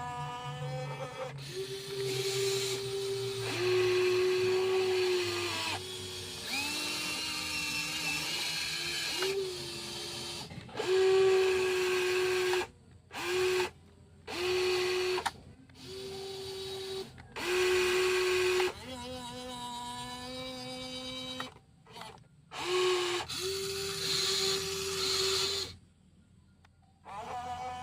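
Small electric motors of a WL16800 RC toy excavator whining as its arm and bucket move. The whine dips and rises in pitch and stops and starts several times.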